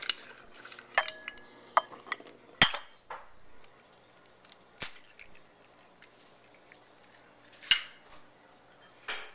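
Eggs being cracked on the rim of a small bowl: a handful of separate sharp taps and clinks of shell against the bowl, spread out with pauses between them. The loudest knock comes about two and a half seconds in.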